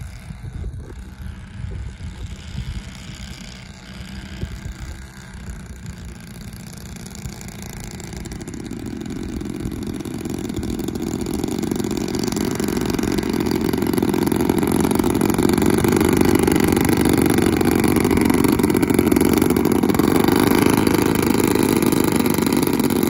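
25% scale RC Beechcraft Starship's twin pusher propellers and motors running as the model taxis on grass, growing steadily louder as it approaches and then holding level for the last several seconds.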